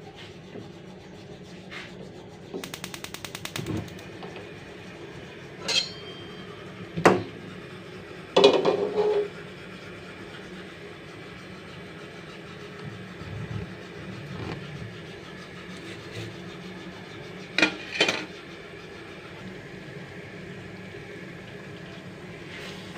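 Gas hob's igniter clicking rapidly for about a second as the burner is lit, then a few sharp metal clanks and knocks as an aluminium karahi is set on the burner and handled, with a steady low hiss underneath.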